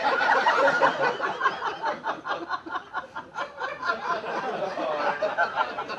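Audience laughing after a joke, many voices at once, loudest in the first second or so and easing off a little after.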